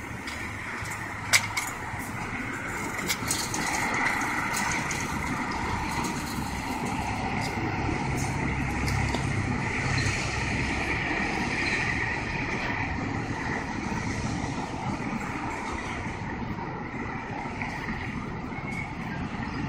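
Street traffic: vehicles passing, a steady engine-and-tyre noise that swells in the middle and then eases. About a second in there is one sharp click.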